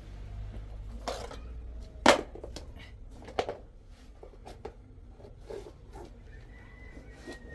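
Shoes stepping and scuffing on a concrete floor: a string of sharp, uneven clicks, the loudest about two seconds in.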